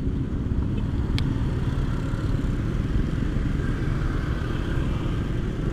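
Motorcycle ridden along at a steady pace: engine running under a constant low rumble of wind and road noise on the microphone, with one small click about a second in.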